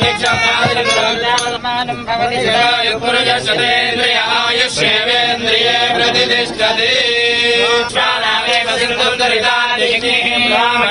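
Background music: a man's voice singing in a chanting style, continuous throughout.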